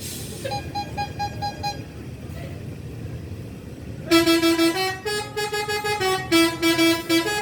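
Bus 'telolet' musical air horn: about four seconds in it starts playing a loud, quick tune of stepped notes that jump between pitches. Earlier comes a rapid run of six short beeps, and a steady engine and traffic rumble runs underneath.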